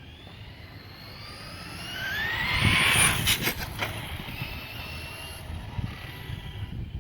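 RC monster truck's brushless motor and drivetrain whining as it speeds up, the pitch rising and loudest about three seconds in as it goes by close, with a few sharp knocks just after. The whine then holds steadier as it runs on down the street.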